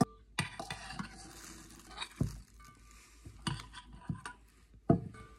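Metal spoon stirring and scraping in a stainless steel mixing bowl, with irregular clinks and knocks against the bowl, some leaving a brief metallic ring.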